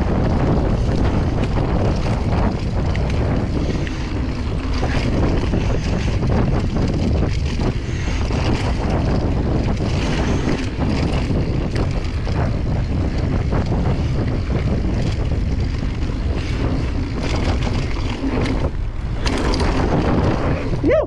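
Wind buffeting the camera microphone over the rumble and rattle of a mountain bike rolling downhill on a dry dirt trail, its tyres crunching over the ground.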